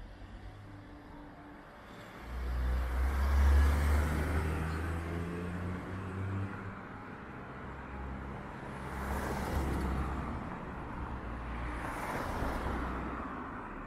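Street traffic: a car engine rumbles close by from about two seconds in, then two cars pass with a rush of tyre noise, one around the middle and one near the end.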